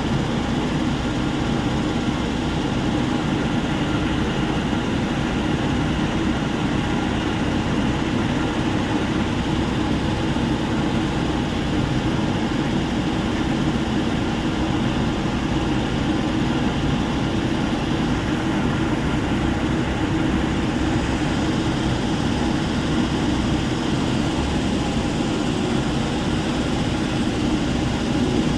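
Heavy machinery at a stone crusher plant running steadily, a continuous engine drone that holds an even level.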